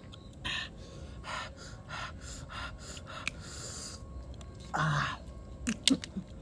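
A person eating and breathing in short, sharp breaths, with a louder gasp about five seconds in and a couple of small mouth clicks just after.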